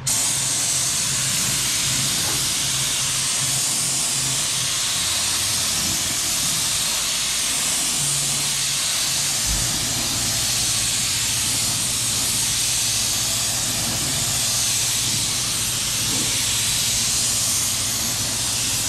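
Gravity-feed paint spray gun hissing steadily as compressed air atomises and sprays epoxy primer; the hiss starts suddenly as the trigger is pulled and holds at an even level, with a low steady hum underneath.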